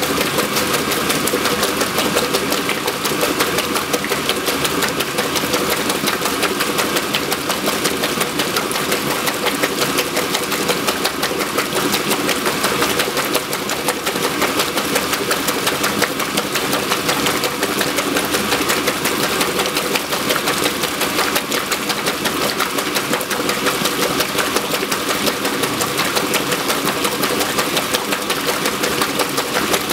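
1963 Frigidaire Custom Imperial top-loading washer agitating. Its motor and Multi-Matic belt-drive transmission run with a steady hum, while the Deep Action agitator churns and sloshes the sudsy wash water and a stream of fill water pours into the tub.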